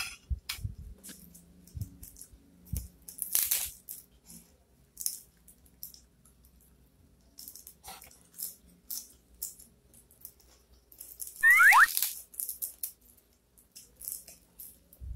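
Close-up eating sounds: a metal fork and spoon clinking and scraping on a ceramic plate, chewing, and crisp lettuce leaves crunching and tearing. The loudest is a crisp, squeaky crackle about twelve seconds in.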